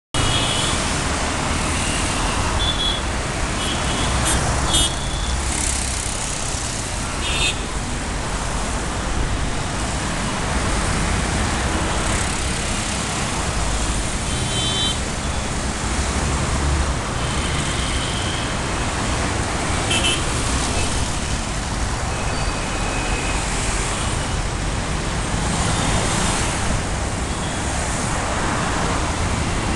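Busy road traffic: a steady rumble of engines and tyres, with short vehicle horn toots sounding again and again, most often in the first several seconds and again in the middle.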